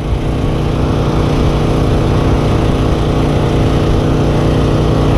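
A small engine running steadily, a constant even drone.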